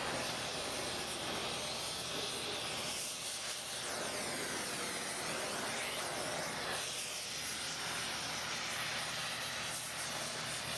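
Gas torch flame hissing steadily as it is played around a copper transmission-line flange, slowly heating the joint up to solder-melting temperature.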